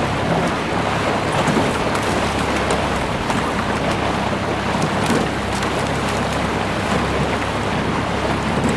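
Steady wind and lake-water noise, with a low, even hum underneath and a few faint clicks.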